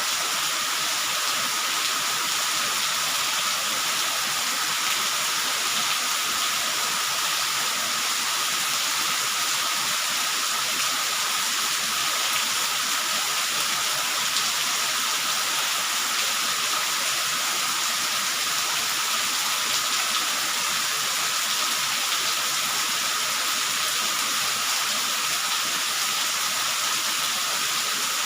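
Steady rainfall: an even hiss with no pauses or single loud drops standing out.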